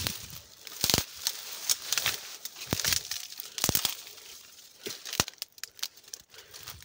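Dry weeds and vines crackling and rustling as they are moved through or handled, with several sharper snaps about 1, 3, 4 and 5 seconds in.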